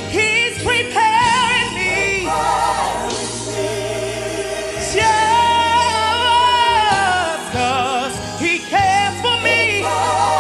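Male gospel solo voice singing with wide vibrato and quick melismatic runs, over a low sustained accompaniment.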